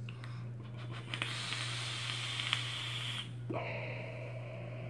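A long draw on a Goon rebuildable dripping atomizer with dual Clapton coils, fired at 75 watts on an RX200 mod: airflow hissing through the atomizer for about two seconds, with a couple of faint crackles from the coils. About three and a half seconds in comes a long breathy exhale of the vapour cloud.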